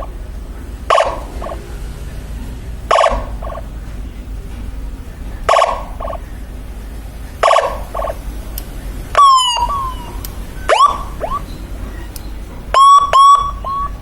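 Electronic 12-tone siren module with echo, playing short sound effects through its speaker. Four short horn-like blasts come about two seconds apart, each followed by a fainter echo repeat. They are followed by quick falling and rising electronic chirps, and two sharp rising whoop chirps near the end.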